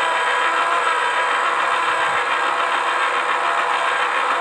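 Small electric motor of a toy pottery wheel running steadily, a level whine of several tones as the plastic turntable spins.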